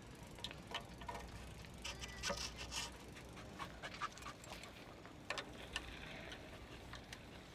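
Faint scattered clicks, taps and rustles of bike parts and tools being handled, at the start of a mountain bike build.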